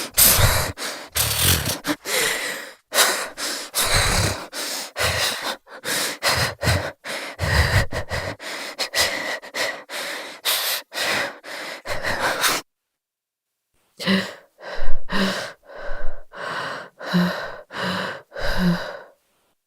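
A woman's shaky, stuttering breathing through an open mouth, quick ragged inhales and exhales as from shivering with cold. It stops for about a second and a half past the middle, then resumes with a few breaths carrying a faint voiced catch, and stops again near the end.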